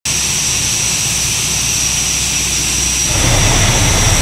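Steady heavy-engine drone with hiss and a thin high whine over it, the low rumble getting louder about three seconds in.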